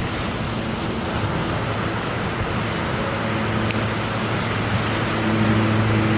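Ocean surf washing in a steady rush of noise, with wind buffeting the microphone. Under it runs a steady low hum that grows louder near the end.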